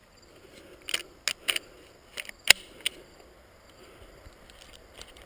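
Handling noise from a 12-gauge shotgun and its sling: a handful of sharp clicks and light knocks spread over a couple of seconds, the sharpest about two and a half seconds in, over faint outdoor background.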